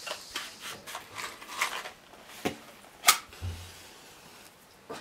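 Handling a box of matches: the tray slid open and a match taken out, a series of light clicks and rattles with one sharp click about three seconds in.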